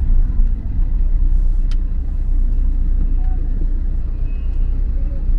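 Steady low road rumble of a taxi driving along the road, with one sharp click a little under two seconds in.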